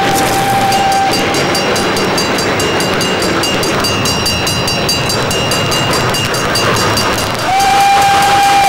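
Running steam train on a film soundtrack played through a hall's speakers: a steady rhythmic clatter of wheels on rail joints over a noisy rumble. A steady held tone sounds through the first second and comes back about seven and a half seconds in.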